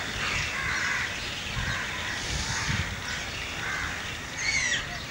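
Crows cawing again and again, with a higher, sweeping call near the end, over a low rumble.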